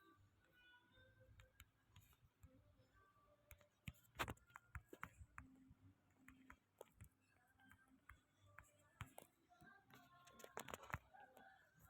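Near silence: room tone with faint scattered clicks and taps, the sharpest about four seconds in and a small cluster near the end.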